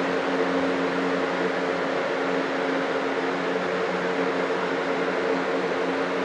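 Steady hum of a running fan motor: a constant low drone over an even hiss.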